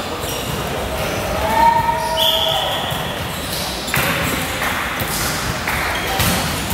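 Indoor volleyball rally on a hardwood court, echoing in a large gym: players' voices, a short high squeak about two seconds in, and sharp slaps of the ball being hit about four and six seconds in.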